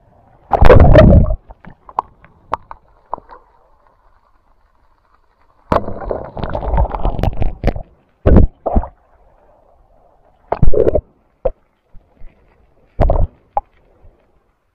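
Sea water splashing and gurgling against a waterproof action camera as it dips in and out of the surface while its wearer swims. The noise comes in irregular loud bursts, the longest about two seconds in the middle, with quiet stretches between.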